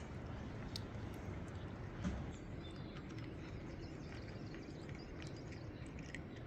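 Cats eating, heard as faint, scattered small clicks of chewing over a steady low background noise.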